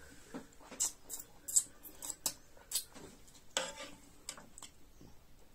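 A person eating with a metal fork from a large iron wok: irregular small clicks and smacks from chewing and from the fork touching the pan, with one brief louder noise about three and a half seconds in.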